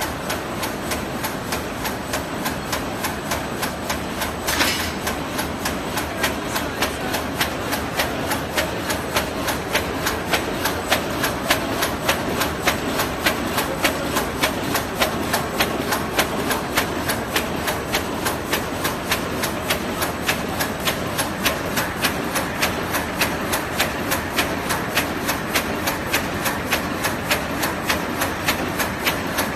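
HBJ-D1200 double-line carton erecting machine running, folding paperboard blanks into boxes with a steady, rapid mechanical clacking. One louder knock comes about four and a half seconds in.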